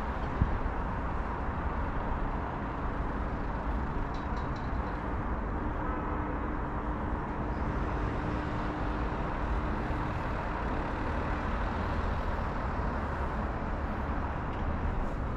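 Steady rumble of city road traffic, with one sharp click about half a second in.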